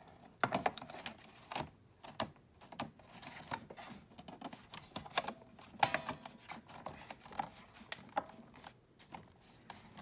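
Bottom plate of a Hoover Power Drive Supreme upright vacuum being slid back onto the base by hand: scattered clicks, taps and light scrapes, with a sharper click about six seconds in.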